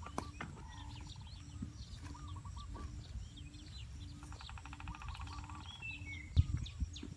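Birds chirping and trilling, over a low note repeating about twice a second. A hoe strikes dry earth once just after the start, and there is a dull thump about six seconds in.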